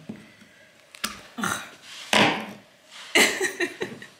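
Needle-nose pliers gripping and yanking leftover carpet staples out of a wooden subfloor, with about six sharp, irregular scrapes and clicks of metal on wood.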